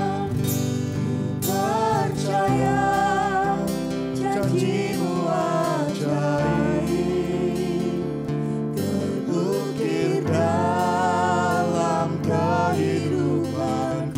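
Women singing an Indonesian worship song into microphones, accompanied by strummed acoustic guitar and keyboard chords.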